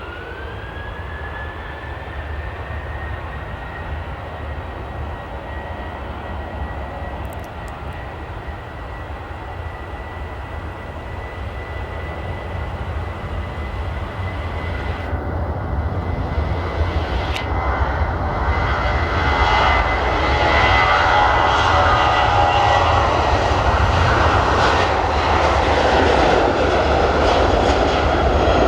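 Jet airliner engines: a whine rises in pitch in the first couple of seconds and settles into a steady high tone, and the engine noise grows steadily louder for about twenty seconds as the aircraft comes closer, then stays loud.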